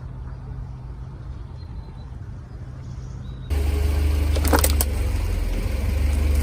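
Car engine running with a steady low rumble. About halfway through it suddenly gets louder, and a few sharp cracks follow as a tyre crushes an object.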